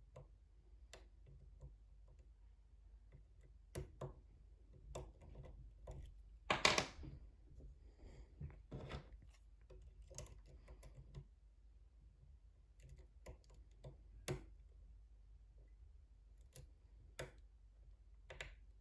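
Lock pick and tension wrench working the pins of a pin-tumbler challenge lock: faint, irregular small clicks and scrapes, the loudest a short scrape about six and a half seconds in.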